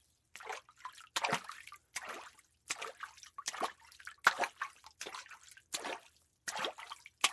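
Footsteps walking at a steady pace, about ten steps, each a sharp footfall with a short scuffing tail.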